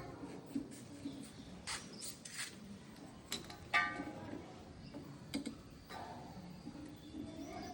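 Scattered clicks and knocks of work on bathroom plumbing fittings, about half a dozen over several seconds, with one sharper clink that rings briefly a little under four seconds in.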